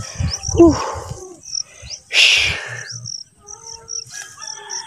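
High chirping from field insects, rapidly repeated. Low handling thumps on the phone microphone in the first second, and a loud brief rustle about two seconds in.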